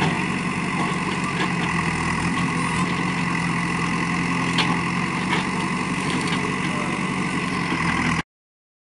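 JCB backhoe loader's diesel engine running steadily while its backhoe arm works a fallen tree and brush, with a few light knocks. The sound cuts off suddenly about eight seconds in.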